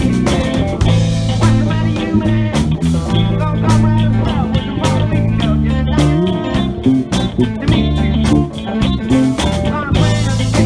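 Live rock band playing: electric guitars over bass guitar and a drum kit keeping a steady beat, with sliding guitar lines here and there.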